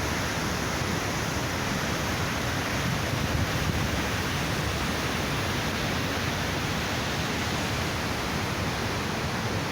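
The steady roar of a large waterfall, water dropping about 40 metres, a dense even rush with no let-up.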